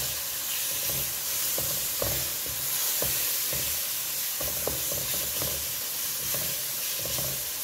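Semolina and chopped dried figs frying in ghee in a wok with a steady sizzle, while a wooden spatula scrapes and knocks against the pan in strokes about twice a second as the halwa mixture is stirred and roasted.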